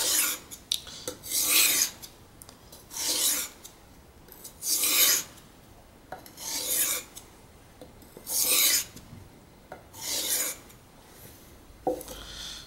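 Carbon-steel knife blade drawn across a wet 4000-grit Norton whetstone in about eight slow, even strokes, each a short gritty hiss. This is the fine-grit stage of reprofiling the edge, working it toward a mirror finish.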